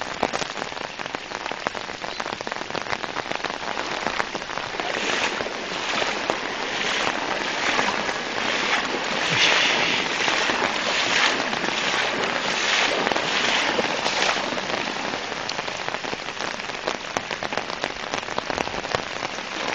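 Muddy floodwater rushing over a road and into orchards: a steady noisy wash with fine crackling, louder for a stretch in the middle.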